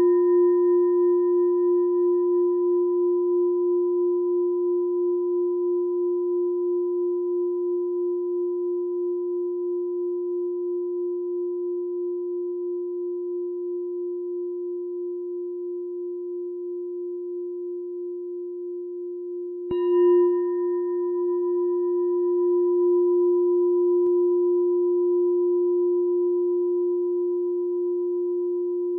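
A meditation bell ringing with one steady low tone and a few fainter higher overtones that die away sooner, fading slowly, with a slight wavering in loudness. It is struck again about twenty seconds in and rings on the same way.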